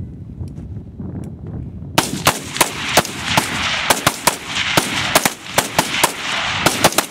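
Several rifles fired at once by a squad of shooters, a rapid, uneven string of overlapping shots starting about two seconds in. This is a timed standards drill, each shooter firing three rounds at a rifle target after the start signal.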